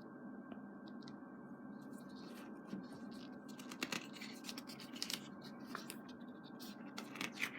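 Pages of a thick photo book being turned and handled: faint paper rustles and scattered light taps over a steady background hiss, growing busier near the end.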